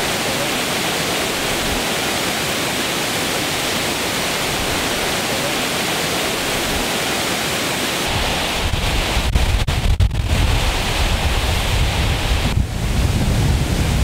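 Steady rush of the Paterson Great Falls pouring over ice-coated rock. From about eight seconds in, low gusting wind buffeting the microphone joins the water noise.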